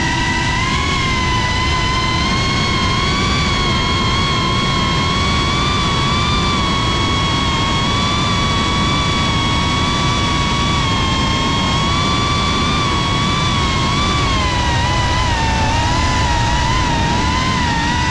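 FPV quadcopter's motors and propellers whining at a high, nearly steady pitch that wavers slightly with throttle, over a rough rushing noise.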